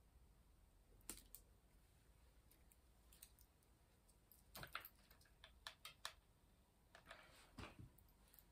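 Faint, scattered clicks and taps of small craft pieces (pine cones, sprigs, tools) being handled and set down on a cutting mat, most of them in the second half.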